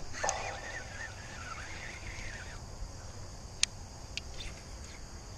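A baitcasting reel's spool whirs for about two and a half seconds as line pays out on a cast, then stops abruptly. A few sharp clicks follow as the retrieve begins, over a steady high-pitched background drone.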